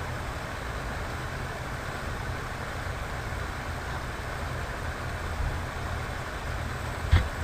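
Steady low background rumble with faint hiss, and a single short knock near the end.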